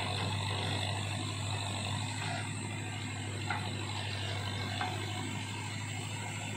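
Tractor's diesel engine running steadily with a low drone while it powers a tractor-mounted backhoe digging soil and lifting the loaded bucket, with two faint clicks in the middle.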